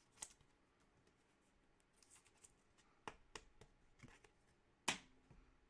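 Faint handling of trading cards: a few soft clicks and brief rustles as cards are slid and flipped, the sharpest click about five seconds in.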